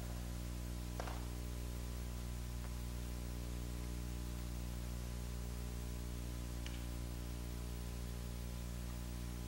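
Steady electrical hum with a stack of overtones over a background hiss, with a faint tick about a second in and another near the end.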